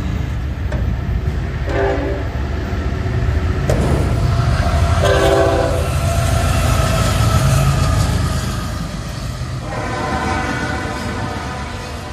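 Eastbound CSX intermodal freight train passing close by: the diesel locomotive sounds its horn several times, with a short blast about two seconds in, another around five seconds and a longer one near the end, over the heavy rumble of the locomotive and the rolling double-stack cars.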